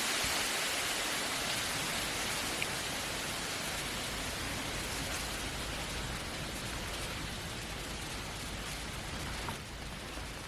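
Steady even hiss of rain, slowly getting a little quieter, with a few faint ticks.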